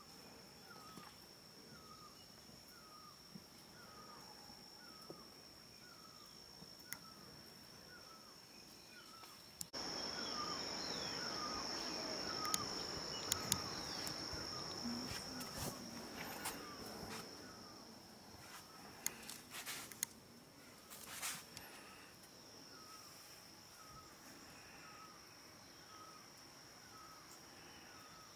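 Faint rural ambience: a steady high-pitched insect drone with a short chirping call repeating about one and a half times a second. About ten seconds in a rushing noise comes in abruptly and fades away by about eighteen seconds, with a few scattered clicks.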